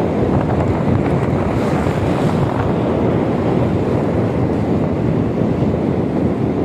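Steady, loud rushing noise of rain with wind buffeting the microphone.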